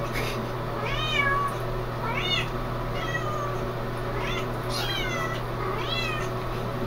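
Young kittens mewing: a string of short, high-pitched cries about once a second, over a steady low hum.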